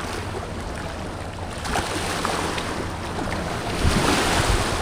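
Motor watercraft engine running steadily over waves and wind noise on the microphone, growing louder near the end.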